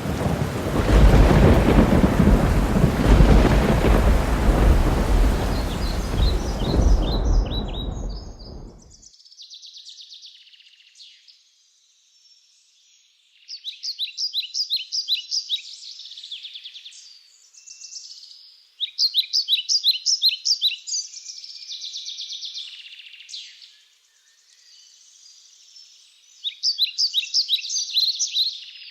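Heavy rain with rumbling thunder for the first eight or nine seconds, cutting off abruptly. Then birds chirp in groups of quick repeated trills for the rest.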